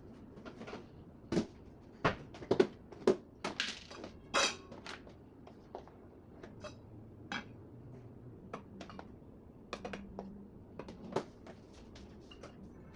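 Kitchen dishes and utensils knocking and clinking as they are handled: irregular sharp knocks, busiest and loudest in the first five seconds, sparser after.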